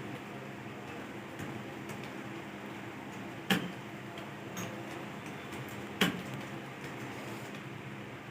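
Steady hum of an electric fan in a small room, with faint scattered ticks and two sharp, loud clicks about two and a half seconds apart.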